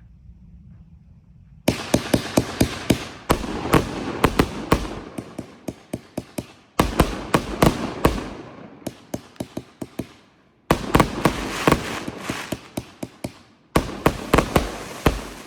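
A firework, announced as the Terp Slurper, going off in repeated volleys. Each volley opens with a sudden loud bang and is followed by many quick sharp cracks that fade away. The first volley comes nearly two seconds in, and four more follow with short gaps between them.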